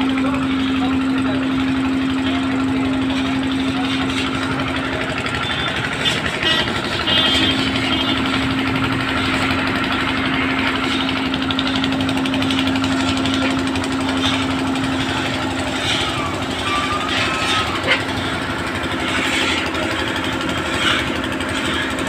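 A motor running with a constant, steady hum over a background of machine noise.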